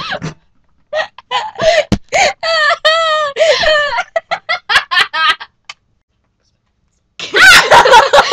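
Girls laughing in high-pitched, choppy bursts, forced laughter while trying to keep a straight face. The sound cuts out completely for about a second and a half near two-thirds of the way through, then the laughing comes back louder near the end.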